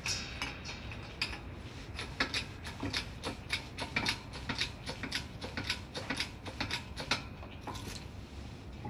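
Bottle jack of a Tuffiom 6-ton hydraulic shop press being pumped by hand, its metal pump handle clicking and clinking about three times a second.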